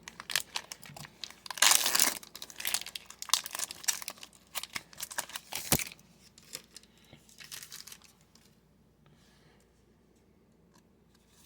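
Hockey trading-card pack wrapper being crinkled and torn open, with a burst of crackling about two seconds in, then the cards being handled more quietly until the sound dies away.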